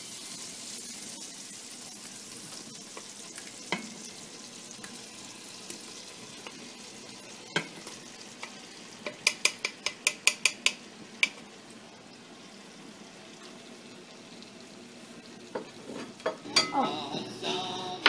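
Raw beef cubes sizzling as they start to brown in a hot stew pot with onions and garlic: a steady frying hiss. Around the middle comes a quick run of about ten sharp taps as a wooden spoon knocks the last of the meat off the plate into the pot.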